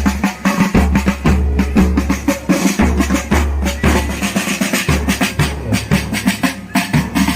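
Drums of a marching band playing a dense, steady march beat.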